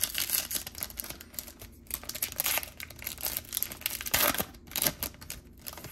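Foil wrapper of a Topps Chrome Platinum baseball card pack being torn open and crinkled: a run of crackling rustles with several louder crackles.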